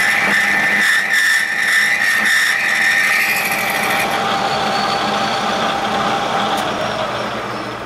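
Bridgeport milling machine's end mill climb-milling a metal bar, with a high squeal that the machinist puts down to the material being a little harder. The squeal stops about halfway through while the machine keeps running, and its sound fades near the end.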